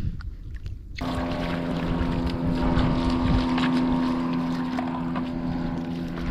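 Wind and water rumble, then about a second in a motorboat engine cuts in, running at a steady pitch with wind noise on the microphone.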